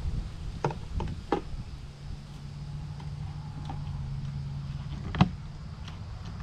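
A few sharp knocks and clicks from hive parts and feeder lids being handled: three close together in the first second and a half, and a louder one near the end. Under them runs a low rumble, with a steady low hum in the middle.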